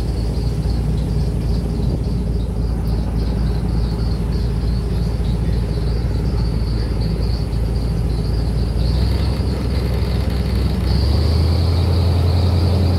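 Airboat engine and its large air propeller running steadily at cruising speed. Near the end the low drone steps up to a higher, louder note.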